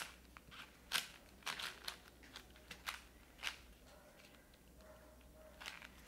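Layers of a stickerless plastic 4x4 Rubik's cube being turned by hand: faint, sharp plastic clicks and clacks at irregular intervals.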